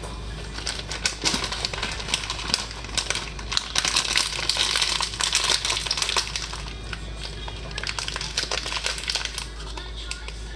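Crinkling and rustling of something thin and crinkly being handled: many irregular small crackles, busiest about four to six seconds in, dying down near the end.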